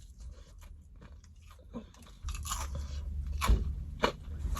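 A person chewing and biting crunchy food close to the microphone. It starts with faint mouth clicks and grows louder about two seconds in, with several sharp crunches.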